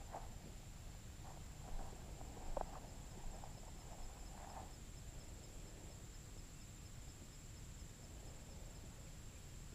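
Faint insect sound in open grassland: a steady high-pitched drone, joined from about three seconds in by a quick, even series of soft high ticks. Soft rustling and handling noises come and go in the first half.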